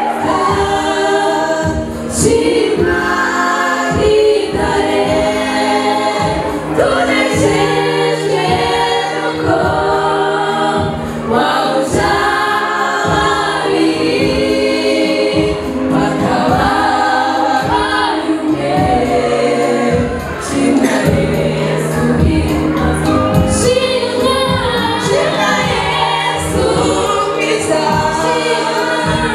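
A group of women singing a gospel-style song together through microphones over a steady beat.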